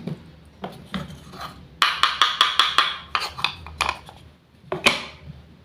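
Hard wooden clacks and knocks from wooden toy fruit and vegetable pieces, with a quick run of about eight clacks around two seconds in and a few scattered knocks after.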